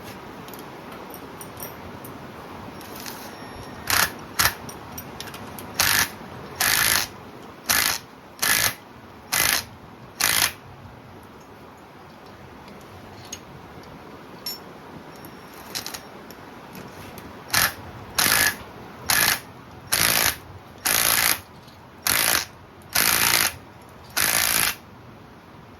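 Ratchet wrench running down the rocker arm nuts on a Chevy small-block's valvetrain, in short bursts of ratcheting. There are two runs of about eight bursts each, with a pause of several seconds in the middle.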